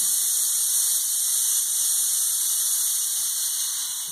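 Compressed air hissing steadily from the pneumatic system of an Ikarus 280 service bus as its air cylinders lift the rear hatch, fading away near the end.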